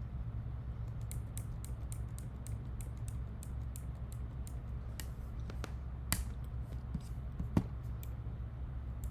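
Light, irregular clicking of a computer mouse and its scroll wheel, with a few sharper clicks about six and seven and a half seconds in, over a steady low hum.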